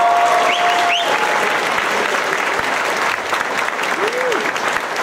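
Audience applauding, dense clapping with voices calling out over it; a long held shout stops about a second in.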